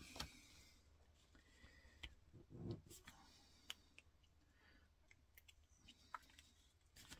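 Faint, scattered clicks and taps of small plastic parts being handled and trimmed with a craft knife, with a soft thump about two and a half seconds in.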